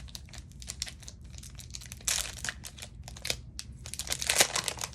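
Foil wrapper of a Pokémon TCG Paldea Evolved booster pack crinkling and tearing as it is opened by hand, a rapid run of sharp crackles, loudest near the end.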